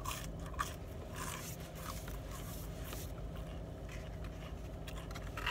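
Soft scrapes and rustles of handling and a finger being licked, with a few short strokes scattered through, over a steady low hum inside a car.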